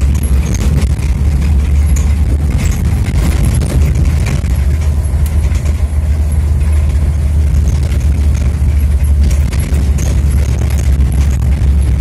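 Vehicle driving on an unpaved dirt road, heard from inside: a steady low rumble with scattered rattles and knocks from the rough surface.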